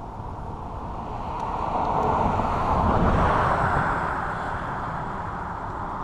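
A vehicle passing by: a rushing noise that swells to a peak about three seconds in and fades away, over a steady background rumble of traffic.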